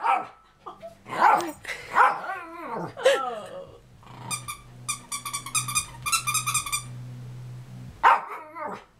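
American Eskimo dog howling in short, wavering cries, set off by the toy held above it. Midway comes a fast run of short high squeaks, and another brief cry follows near the end.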